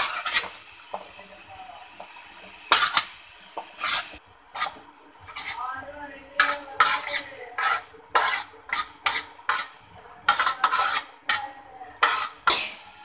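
Chopped fruit scraped off a plate into a plastic bowl: an irregular run of sharp clinks and scrapes of cutlery on dishes as the pieces drop in, coming thicker in the second half.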